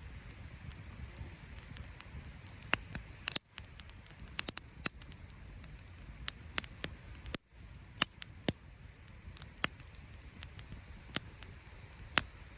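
Wood campfire crackling, with irregular sharp pops and snaps over a low steady background. The sound cuts out very briefly twice.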